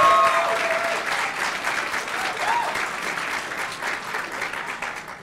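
Audience applauding, getting steadily quieter and dying away near the end.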